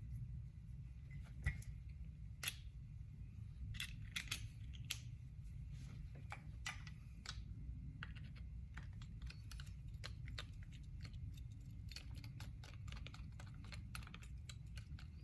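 Small metal clicks and ticks from a screwdriver and the parts of an Andis Master clipper being handled while a screw is driven in: a few sharp clicks in the first five seconds, then a quicker run of light ticks, over a low steady hum.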